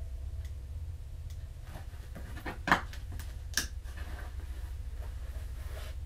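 Bedclothes rustling and two soft knocks about halfway through, as a phone is put away in bed, over a steady low hum.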